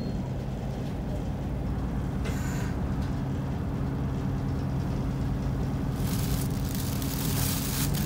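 Isuzu Erga city bus's diesel engine idling steadily with the bus at a standstill, heard from inside the cabin. A loud hiss of compressed air comes about six seconds in and lasts some two seconds.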